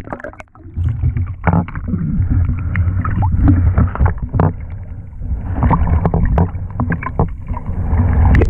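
Muffled water sloshing and rumbling around an underwater GoPro as a snorkeler swims, with scattered short clicks and knocks.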